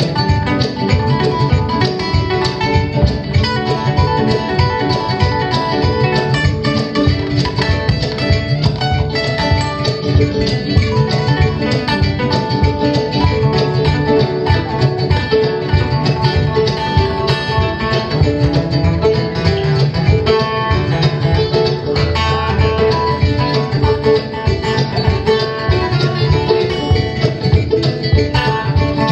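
Live instrumental music on plucked strings, acoustic guitar with the West African kamale ngoni, playing a dense, steadily pulsing passage that blends bluegrass with Mande music.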